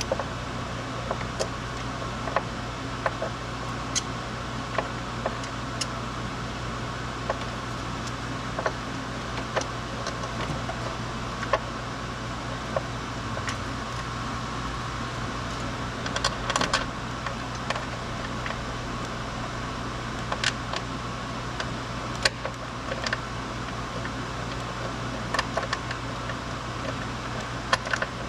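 Scattered metallic clicks and clinks of hand tools and parts being handled during engine-bay work, at irregular times with a small cluster about two-thirds of the way through, over a steady low hum.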